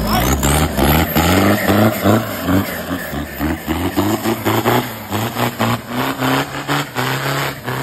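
Off-road 4x4's diesel engine revving hard under load through a mud pit, its pitch climbing and dropping back in repeated bursts about twice a second as the throttle is worked.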